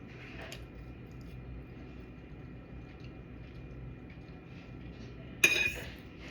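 Quiet room tone with a faint steady hum, then a single sharp clink of cutlery against a dish about five and a half seconds in.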